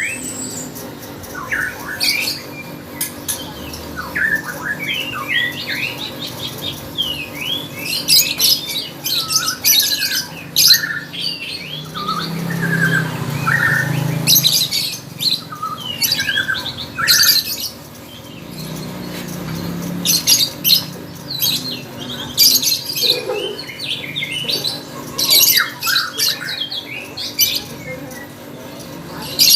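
Lovebird in full song, a rapid string of short chirps and sharp high-pitched squawks with hardly a pause.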